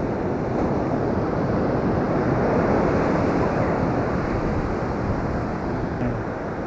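Ocean surf washing up the beach: a steady rushing that swells about two to three seconds in, with wind on the microphone.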